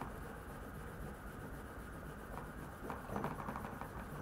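52100 steel knife edge drawn rapidly back and forth through a notch in a wooden groove sharpener charged with green chromium oxide compound: faint dry scraping strokes, a little more distinct about three seconds in. This is the fine polishing stage for a mirror bevel.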